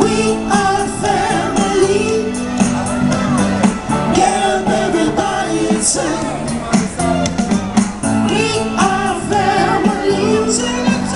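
Live band playing an upbeat song with a lead singer, amplified through small portable amps, with a steady drum beat and bass line under the vocal.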